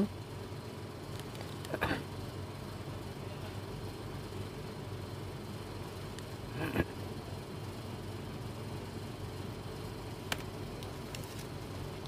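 Steady low background hum. Two short faint sounds break it, and near the end come two faint sharp clicks as a keypad mobile phone is handled.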